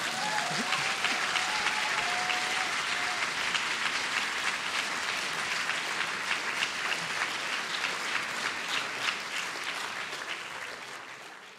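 Audience applauding, dying away gradually toward the end.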